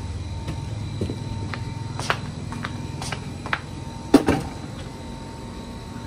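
Scattered knocks and clatters of objects being moved and handled while rummaging for a tool, the loudest about four seconds in, over a steady low hum.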